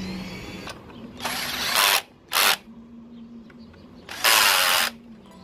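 Power drill with a socket bit driving in bolts, in three short runs: one of just under a second about a second in, a brief one just after two seconds, and another of under a second past four seconds.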